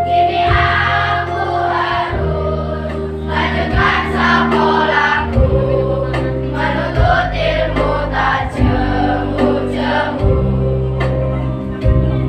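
Primary-school children's choir, girls and boys together, singing a song over held low keyboard chords that change every few seconds.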